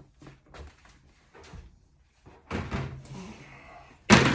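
Handling noises from a Paslode IM350 Plus nail gun being taken apart on the bench: a few small clicks and rattles, then one loud knock near the end as a part or the tool is set down.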